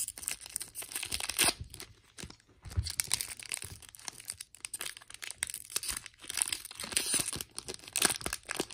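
Foil wrapper of a football trading-card pack being torn open and crinkled in the hands, with irregular crackling and tearing throughout.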